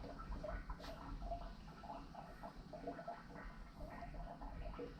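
Primer dauber swabbing primer onto plastic pipe and fittings: faint, irregular wet squeaking and rubbing.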